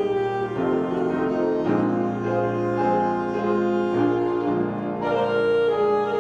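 Slow instrumental music with bowed strings and piano holding sustained chords that change every second or two.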